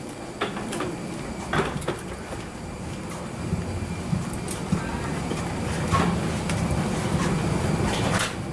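Steady low hum of a parked airliner's cabin, with scattered clicks and knocks from passengers moving out with their bags.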